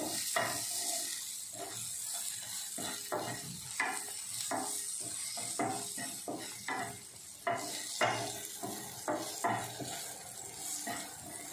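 Wooden spatula scraping and knocking against a nonstick frying pan as sliced chicken sausage rounds are stirred, in irregular strokes, over a steady light sizzle from the still-hot pan with its burner off.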